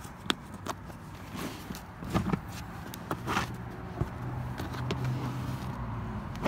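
Carpet floor mats being handled and lifted off a rubber floor liner: several light knocks and taps, a rustle about three seconds in, and a steady low hum that comes in about halfway.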